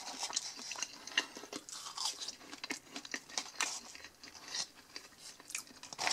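Crisp french fries being chewed, with irregular short crunches, mixed with light rustling as fingers pick through the fries in a cardboard cup.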